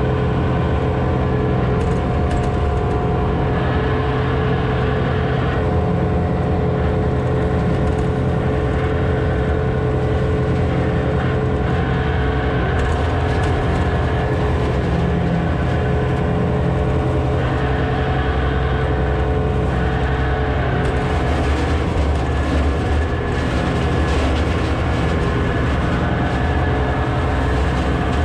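County tractor's engine running steadily under load, heard from inside the cab, with the Twose flail hedge cutter's head spinning and chopping through hedge branches.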